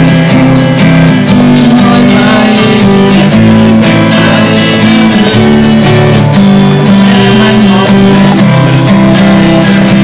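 Acoustic guitar strummed in a steady rhythm, the chords changing every second or so.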